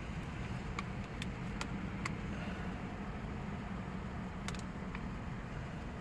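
A person chewing a chicken fajita pita with small wet mouth clicks now and then, over a steady low hum in a vehicle cabin.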